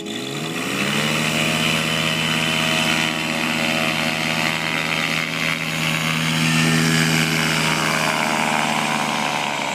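Paramotor trike's engine and propeller revving up over the first second, then running steadily at takeoff power during the takeoff run.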